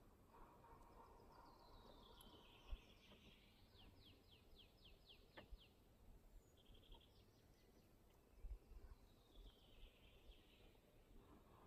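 Faint songbird song: several high, quick runs of notes that slide downward, repeated a few times. Two soft clicks can be heard among them.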